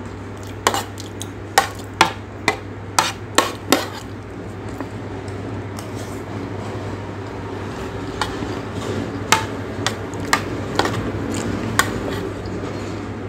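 Metal spoon clinking and scraping against a ceramic plate while eating: a run of sharp clicks in the first four seconds and more from about eight seconds in. A steady low hum runs underneath.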